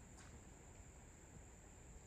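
Faint outdoor ambience: a steady, high-pitched insect trill, with a low rumble of wind on the microphone and one faint tick about a quarter second in.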